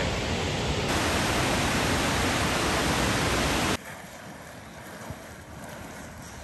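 Steady rushing water noise that cuts off abruptly about four seconds in, leaving a much quieter hiss.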